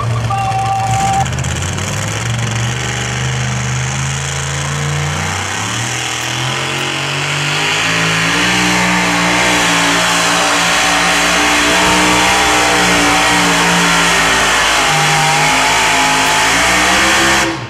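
Pulling truck's engine revving hard at full throttle on a pull, running loud and steady with its pitch climbing gradually. It cuts off suddenly at the end.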